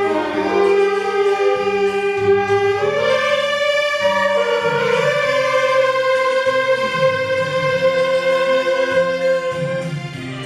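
Beginner saxophone ensemble playing a melody together over a lower accompanying line. The melody moves through a few notes, then holds one long note through most of the second half.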